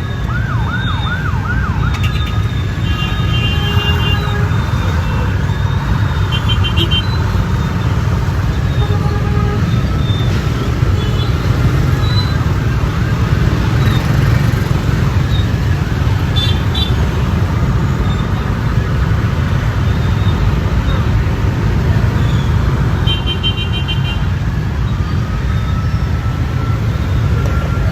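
Congested city road traffic with a steady low engine rumble. A siren warbles fast about half a second in and wails slowly near the end, and a few short horn beeps sound through the jam.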